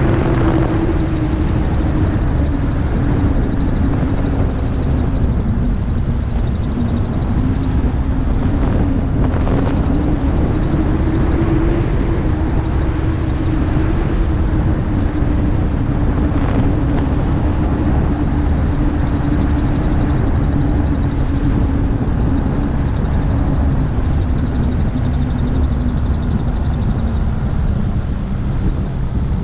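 MTO Sport gyroplane's pusher engine and propeller running steadily in flight, its note wandering slightly up and down and easing off a little near the end, with wind rushing over the open cockpit.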